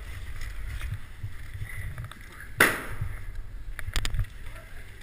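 A single loud, sharp bang with a short echoing tail about two and a half seconds in, then two quick sharp cracks about a second and a half later, over a steady low rumble on the microphone.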